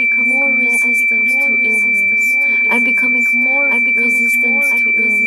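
Ambient background music: a steady high pure tone over a low drone, with short gliding notes recurring about twice a second.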